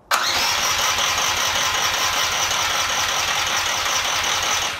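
McCulloch ride-on lawnmower's electric starter cranking its engine, a steady whirr with a fast regular pulse that starts suddenly and stops near the end, without the engine catching. The engine won't fire because the seat safety switch is not pressed.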